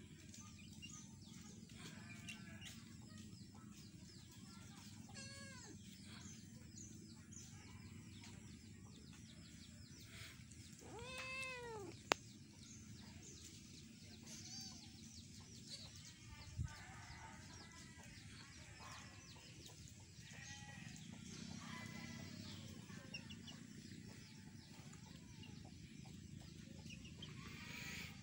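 Kittens meowing again and again, with one louder, drawn-out meow about eleven seconds in, over a scatter of short, high chick peeps. A single sharp click just after the loud meow.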